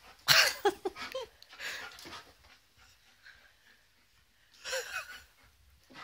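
Alaskan malamute breathing hard and giving short, whiny vocal sounds in two brief bursts, one about half a second in and a weaker one near the end, while it plays at a balloon.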